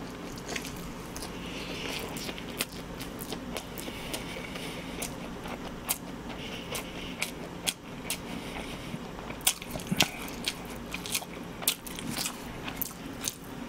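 Close-miked chewing of a large mouthful of chewy cold noodles in spicy sauce, with sharp wet mouth smacks and clicks scattered throughout.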